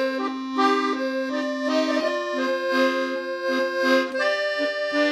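Instrumental background music: a melody of held notes that change about every half second, over a steady low sustained note.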